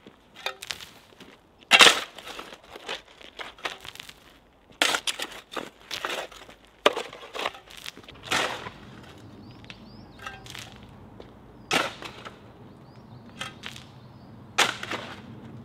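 Metal shovels and spades scraping and cutting into earth as a pit is dug by hand, in irregular strokes of varying loudness, the loudest a little under two seconds in.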